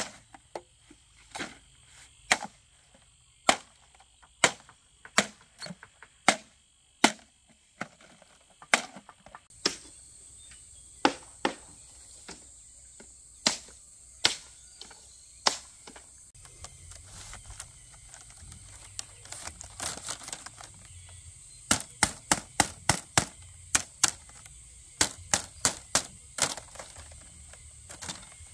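Bamboo being worked by hand: sharp, irregular knocks and clacks, coming in quick runs in the last few seconds, over a steady high insect drone.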